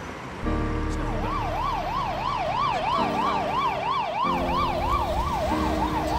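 Ambulance siren sounding in quick up-and-down yelping sweeps, about three a second, starting about a second in.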